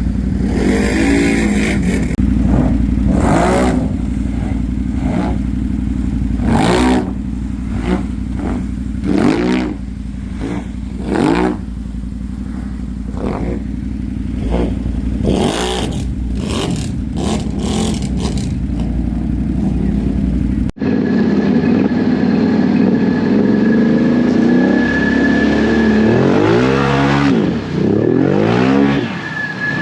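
ATV engines revving hard over and over, the pitch rising and falling with each throttle blip, with scattered bursts of clatter and spray. Partway through the sound cuts abruptly to another stretch of the same repeated revving.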